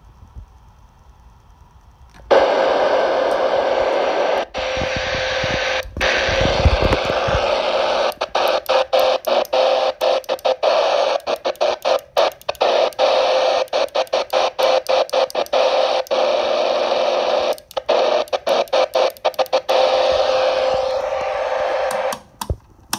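CB radio receiver static hissing loudly through its speaker with a steady whine in it, starting about two seconds in. It drops out in many quick short gaps in the middle as the channel knob is stepped, and stops shortly before the end.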